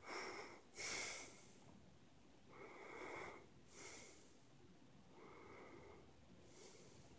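A person breathing right at the microphone: six noisy, snorting breaths. The two strongest come in the first second and a half, and weaker ones follow about a second apart.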